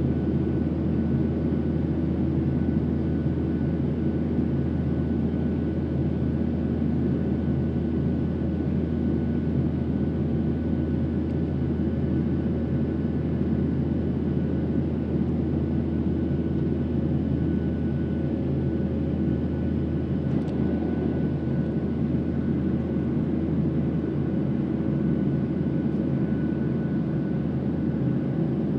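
Steady cabin drone of a Boeing 737-700 in flight: its CFM56-7B jet engines and the airflow over the fuselage as a constant rush, with a few steady hum tones over it.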